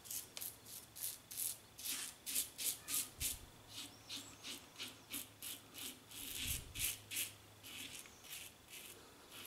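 Double-edge safety razor scraping stubble through shaving-soap lather: a quick series of short, scratchy strokes, about two to three a second, with a couple of brief pauses.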